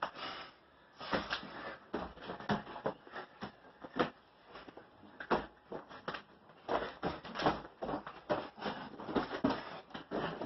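Two men grappling in a clinch: feet scuffling on the floor and bodies bumping, heard as an irregular run of short thuds and scuffs.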